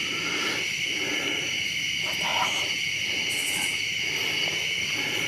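Steady, unbroken high-pitched chorus of night insects.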